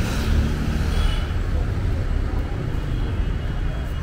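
Busy street ambience: a steady low rumble of vehicle traffic, with people's voices mixed in.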